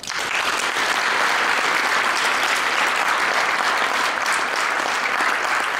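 An audience applauding, breaking out all at once and holding steady.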